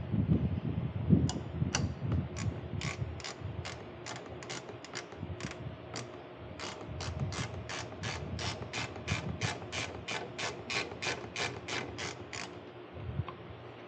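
Hand ratchet wrench clicking as it is swung back and forth on a bolt during suspension work. The clicks come irregularly at first, then settle into a steady run of about three a second before stopping near the end.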